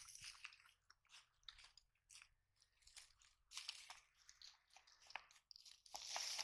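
Faint, scattered crackling and squelching from hands groping through mud, water and water-hyacinth stems in a shallow channel, growing louder about six seconds in.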